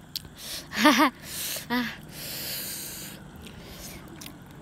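A woman's brief wordless vocal sounds: a short wavering hum about a second in and a shorter one just after, with soft breathy exhales between and after them.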